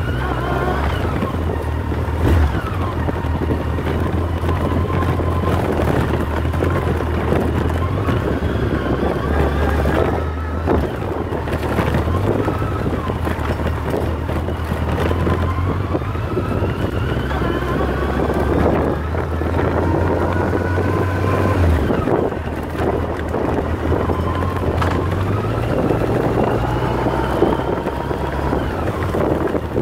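Yamaha FJR1300's inline-four engine running as the motorcycle rides a rough dirt track, its pitch rising and falling with the throttle. Scattered short knocks sound over the engine.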